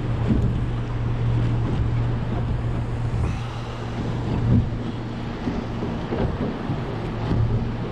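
Boat motor running with a steady low hum, with wind buffeting the microphone.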